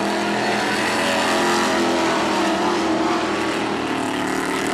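Dirt-track stock car engines running at racing speed around the oval. Several engine notes overlap in a steady drone that shifts slightly in pitch as the cars go by.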